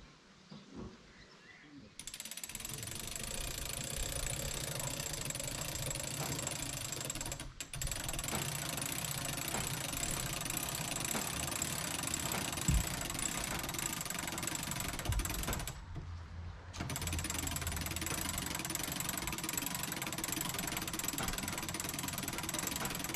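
A motor-driven machine starts up about two seconds in and runs loudly with a harsh, dense rattle. It cuts out for an instant, then again for about a second, when only a low hum is left, and then runs on.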